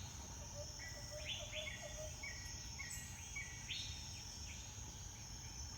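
Tesla Model 3's built-in "Rainforest" sound effect played through the car's speaker: a recording of insects buzzing on a steady high tone with repeated short bird calls. It cuts off suddenly near the end.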